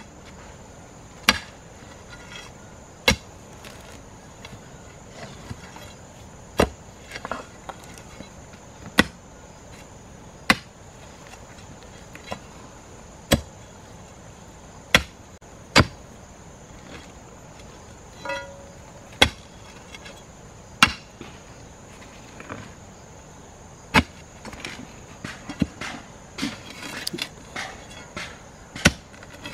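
Hand digging in packed earth with a hoe and an iron digging bar: sharp, separate blows into the dirt, roughly one every one to two seconds.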